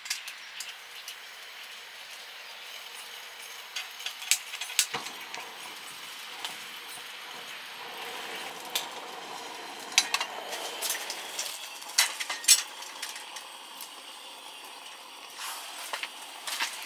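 Steady rain falling on the tent, with scattered sharp clicks and light clinks.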